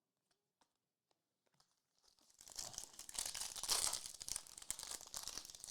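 The wrapper of a Prizm basketball trading-card hobby pack being torn open and crinkled. A couple of seconds in, a run of tearing and crinkling starts and goes on for about three and a half seconds.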